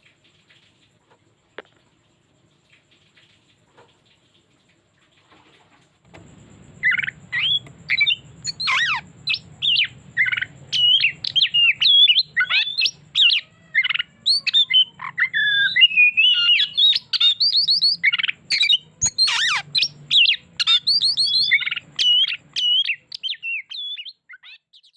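Oriental magpie-robin singing a long, rich song of fast varied whistles and trills packed with learned phrases. It begins about six seconds in, after near silence broken by a few faint clicks.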